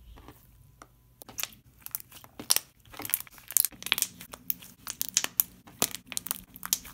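Slime being squished, pressed and pulled off a tabletop by hand, giving rapid, irregular sticky clicks and small pops. They are sparse for the first second and then come thick and fast.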